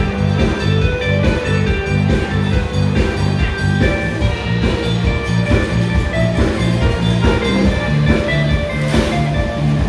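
Music with a steady beat: pitched melodic notes over a repeating bass line and drums.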